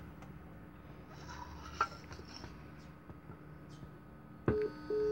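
Telephone line tone heard through a small test amplifier. After faint hiss, a single tone starts abruptly near the end and beeps on and off about twice a second, the cadence of a busy signal.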